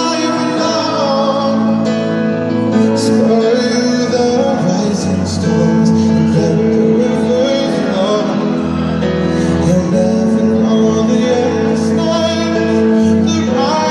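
A pop song performed with a lead vocal holding long, high sung notes over instrumental backing.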